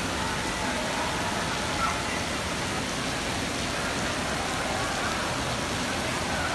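Steady rush of falling and spraying water from water-park fountains and a water cannon.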